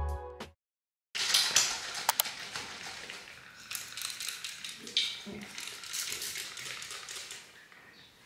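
Background music cuts off, and after a brief silence come light clicks, clatter and rustling of small objects being handled.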